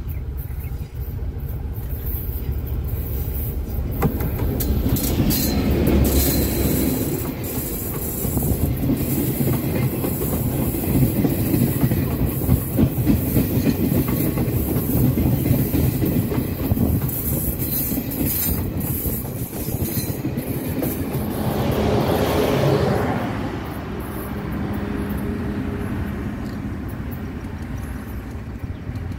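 Passenger train passing close by on the track. Its rumble builds to a peak about six seconds in, the wheels clatter steadily as the coaches go by, there is a second swell as the rear car passes, and the sound fades as the train recedes.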